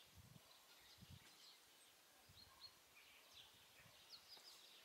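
Near silence: faint outdoor ambience with scattered distant bird chirps and a few soft low thumps.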